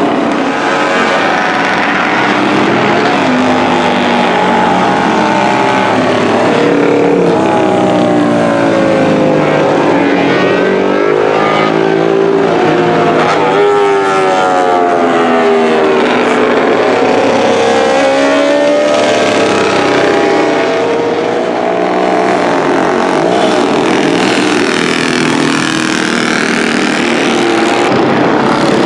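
Several vintage motorcycle engines running at once, their pitch repeatedly rising and falling and overlapping as they rev and pass.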